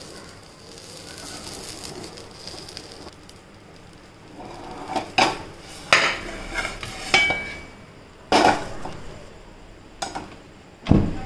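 Metal spatula knocking and scraping against a nonstick frying pan and a ceramic plate as a pizza is slid out of the pan onto the plate. After a faint steady hiss, there are several sharp clinks and knocks in the second half, one ringing briefly, and a heavier knock near the end.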